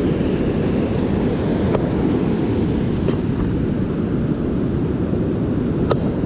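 Wind buffeting the microphone over the steady rush of ocean surf breaking on the beach. Two faint clicks come about two seconds in and near the end.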